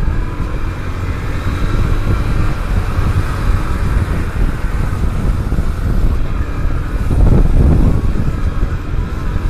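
Motorcycle running while being ridden through town traffic, with a steady low wind rumble on the microphone; the sound swells louder for about a second around seven seconds in.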